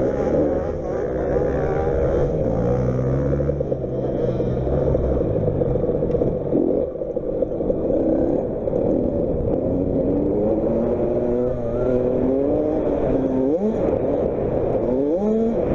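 Motocross bike engines running on a dirt track, their pitch rising and falling with the throttle, with revs climbing sharply near the end.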